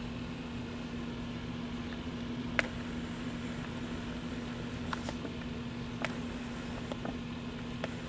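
A steady low hum over a background hiss, with five or six short, sharp clicks at uneven intervals, the loudest about two and a half seconds in.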